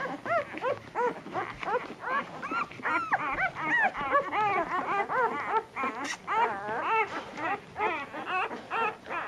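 Newborn puppies whimpering and squeaking while they nurse and jostle for teats. Many short calls, several a second and overlapping, each rising and falling in pitch.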